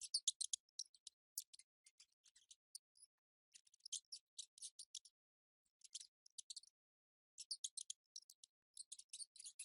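Mice making faint bursts of rapid, high-pitched clicks and scratches, in clusters with short pauses between.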